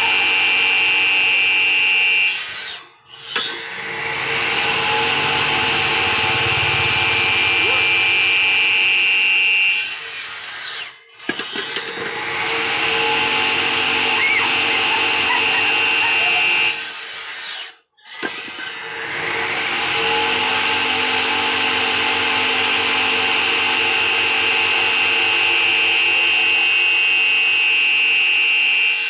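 Bamboo-cutting machine running with a steady whine, its blade cutting through bamboo. The sound cuts out abruptly three times and starts again.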